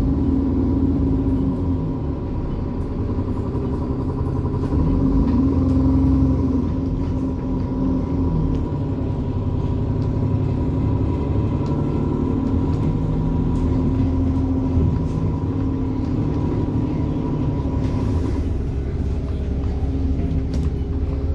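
Alexander Dennis Enviro 400 double-decker bus's diesel engine running under way, its pitch shifting as it pulls, over a low rumble. A steady high turbo whine runs above it and stops about three-quarters of the way through.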